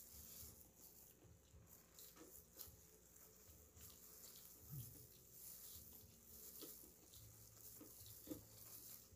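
Faint eating sounds: chewing and small mouth smacks, with scattered soft clicks, a little louder about halfway through and again near the end.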